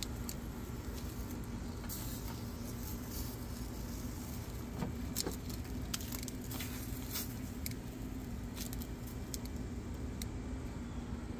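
Metal tongs clicking lightly and irregularly against whole eggplants and the grill grate as they are turned over a gas grill burner, over a steady low rumble.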